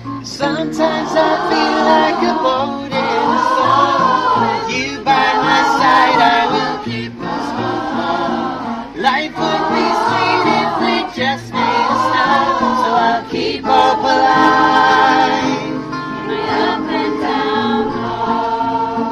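Choir of mostly women's voices singing a song with acoustic guitar accompaniment, in phrases of about two seconds with short breaks between them.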